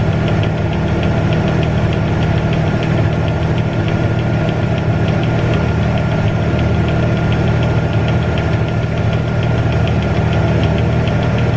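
Farm machinery engine running steadily under load, with a regular light ticking several times a second and a thin steady whine over it.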